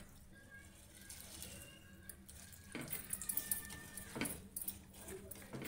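A hand swishing and rubbing poha (flattened rice) in water in a steel pot to wash it: soft wet sloshing, busier and louder with crackly splashes from about three seconds in.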